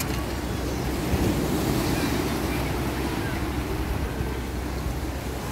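Red Sea surf: waves washing in and breaking on the beach, a steady rushing wash that swells a little about a second in.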